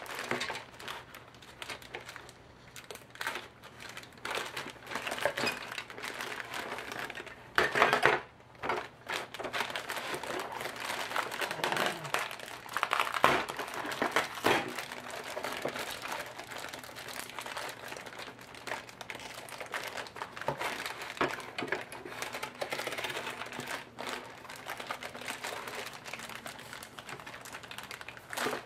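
Plastic parts bags crinkling and rustling as they are cut open and handled, with scattered light clicks and knocks of plastic and metal parts. The rustling is loudest in bursts about eight and thirteen seconds in.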